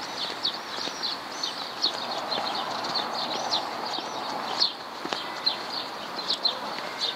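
Footsteps clacking on cobblestone paving, with high chirps repeating several times a second over a steady street hiss.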